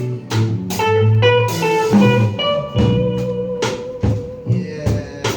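Live band instrumental: guitar playing held melodic notes over bass guitar and a drum kit keeping time.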